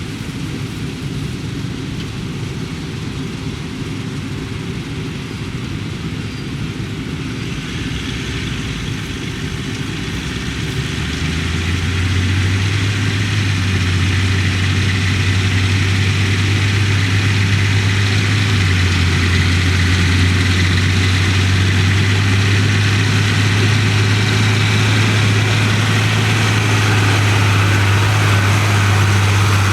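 Diesel farm harvest machinery running steadily at work. About eleven seconds in, a deep engine drone comes in and the sound grows louder, then holds.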